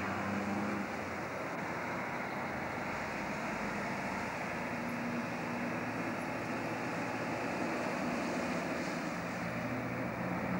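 Diesel engine of a logging truck with its trailer piggybacked, running steadily along the road. The engine note shifts in pitch a few times under a constant road and motor noise.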